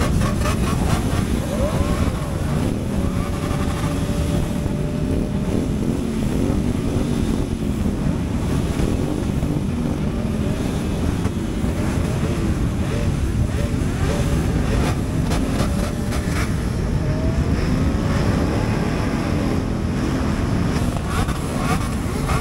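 Many motorcycle engines running at once, idling and being revved, with the pitch of single engines rising and falling over a dense, steady mass of engine noise.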